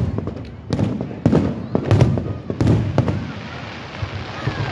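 Fireworks display: aerial shells bursting with sharp booms, six in the first three seconds, followed by a quieter stretch of fainter crackling.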